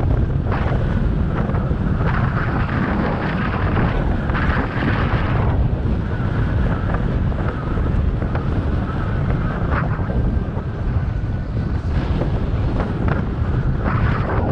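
Wind buffeting the microphone of a camera on a moving bicycle: a steady low rumble with gusts of hiss that swell and fade, strongest a few seconds in.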